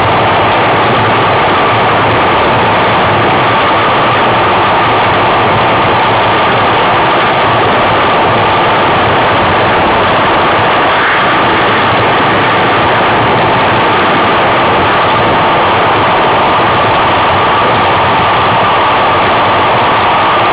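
Loud steady rushing noise of riding a bicycle along a gravel track, picked up by a camera moving with the rider, with an even hum running through it.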